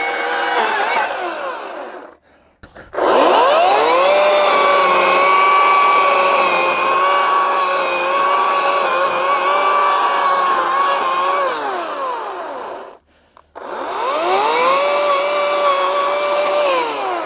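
Ryobi 40V 18-inch brushless battery chainsaw cutting into a stump in three bursts, its electric motor whining at a steady pitch that wavers slightly under load. Each burst ends with the whine falling away as the saw winds down, and the saw stops briefly twice before spinning up again.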